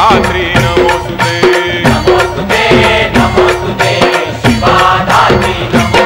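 Devotional gajar chanted by voices over music with a steady drum beat.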